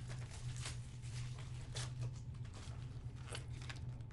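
Cardboard trading-card boxes and packs being handled: scattered light rustles and knocks over a steady low hum.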